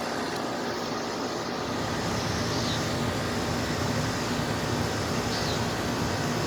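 Outdoor air-conditioner condensing units running: a steady mechanical hum with an even rush of fan air.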